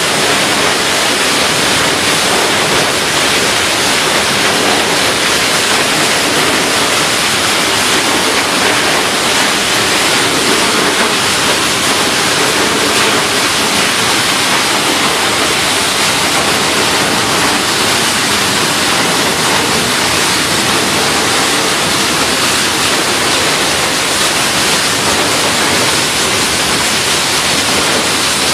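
Loud, steady rushing noise with no rhythm, tones or breaks, like a hiss or a waterfall.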